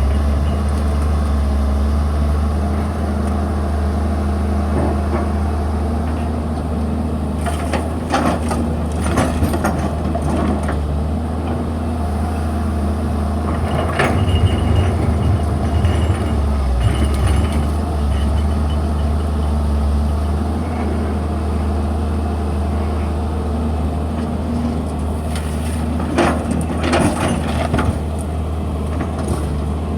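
Excavator's diesel engine running steadily under load, with short metallic knocks and scrapes now and then, bunched about a quarter of the way in, around the middle, and near the end.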